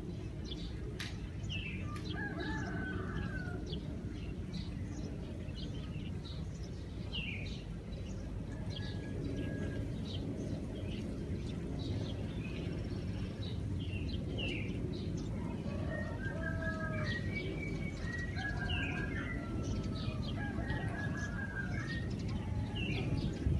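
Morning birds chirping in short, scattered calls over a steady low city hum. A few longer, wavering calls come about two seconds in and again from about sixteen seconds.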